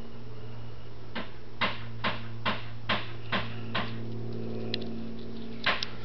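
A run of about seven sharp, evenly spaced clicks, a little over two a second, then a few more clicks near the end, over a steady low hum.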